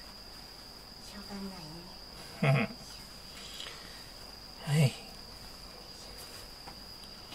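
A steady high-pitched whine runs throughout. Two short voiced sounds, about two and a half and about five seconds in, stand out as the loudest.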